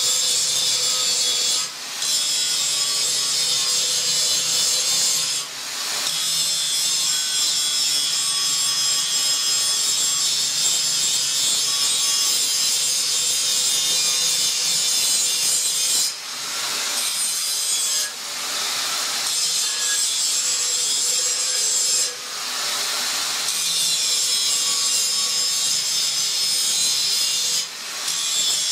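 Angle grinder disc grinding a metal block, throwing sparks: a continuous high-pitched grinding hiss that dips briefly several times.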